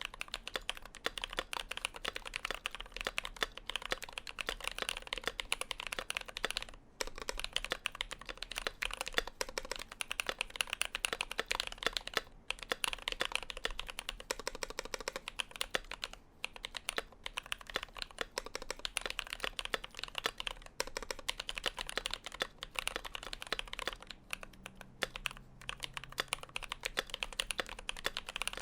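Fast continuous typing on a custom mechanical keyboard: an aluminium-plate Idobao ID80 with lubed Glorious Panda tactile switches and foam dampening. Rapid keystroke clacks with brief pauses here and there.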